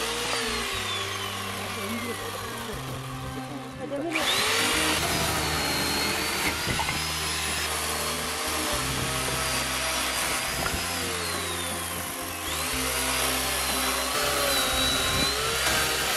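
Electric chainsaw cutting through old, dry wooden beams. Its motor whine sags in pitch as the chain bites into the wood and jumps back up as it frees, and it gets louder about four seconds in. Background music plays underneath.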